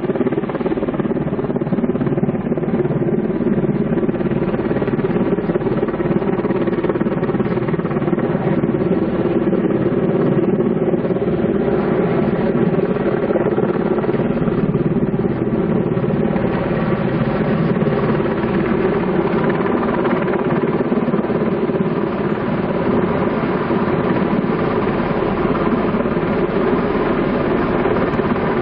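Helicopter running steadily overhead, its engine and rotors giving a constant drone with a sling load hanging beneath it.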